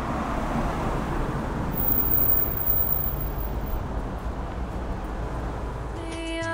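Road traffic on a wide city avenue: a steady rumble and hiss of cars going by. Music comes in near the end.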